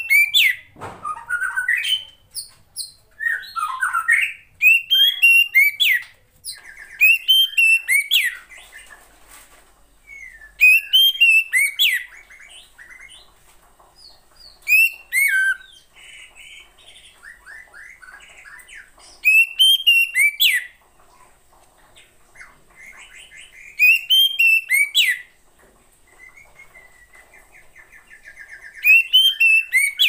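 Female Oriental magpie-robin calling: bursts of quick, rising and falling whistled notes with sharp high chips, repeated every four or five seconds with quieter chatter in between. A female's call of the kind used to coax males into song.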